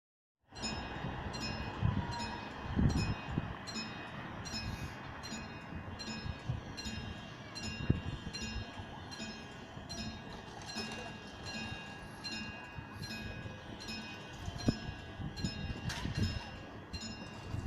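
Level crossing warning alarm sounding in a steady, even repeating cycle of about one and a half tones a second, with a few low thumps of wind or handling.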